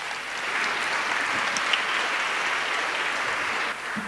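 Audience applauding steadily after a talk, dropping off a little near the end.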